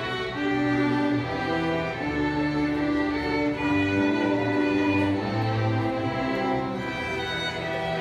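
Student string orchestra of violins with a cello playing a piece in long, held bowed notes, with a low line under the melody.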